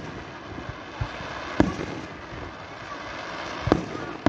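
Aerial firework shells bursting: a few sharp bangs, the loudest about one and a half seconds in and again near the end.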